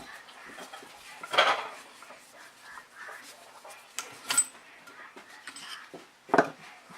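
Metal clinks and knocks as a valve spring compressor, spring and exhaust valve are handled on an aluminium cylinder head. There are a few separate strikes: the loudest about a second and a half in, a ringing clink about four seconds in, and another knock near the end.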